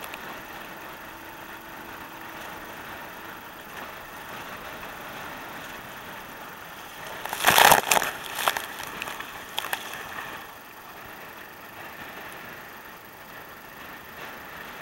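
Strong wind buffeting the microphone over choppy water against a kayak. About halfway through comes a sudden loud rush of noise lasting about a second, followed by a few smaller bursts.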